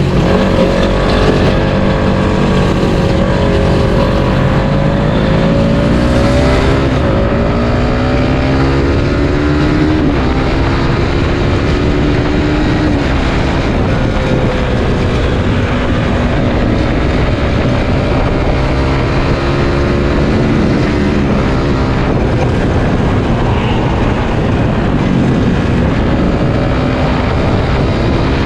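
Suzuki Satria FU 150 fuel-injected single-cylinder four-stroke engine running under way, loud and steady. Its pitch climbs over the first ten seconds or so, drops, and then holds lower for the rest.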